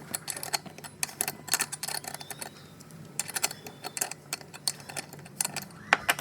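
Irregular metallic clicking and ticking, several clicks a second, as a chainsaw clutch is unscrewed from its crankshaft with a clutch removal tool, the piston held by a piston stop. A sharper click comes about six seconds in.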